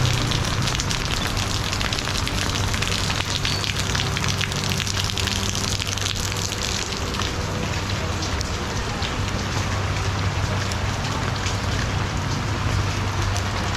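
Steady rain pattering on an umbrella held overhead, a dense hiss of small drop ticks, with a low steady hum underneath.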